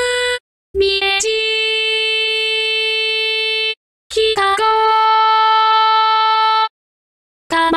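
Synthesized singing voice holding two long, steady notes of about three seconds each, with short silences between them, as it sings Japanese station names to a song melody.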